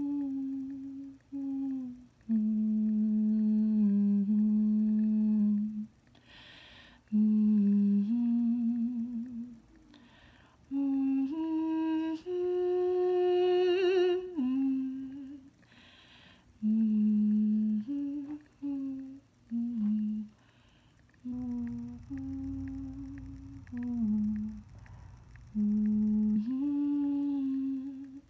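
A woman humming a slow, wandering tune in long held notes that step up and down, with short pauses between phrases.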